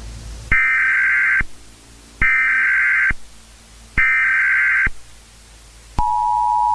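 Emergency Alert System SAME header: three short bursts of screechy digital data tones, then the steady two-tone EAS attention signal starting near the end.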